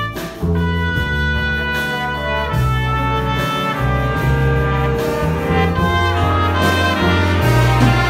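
Jazz big band playing, a trumpet solo in long held notes over saxophones and a strong sustained bass line.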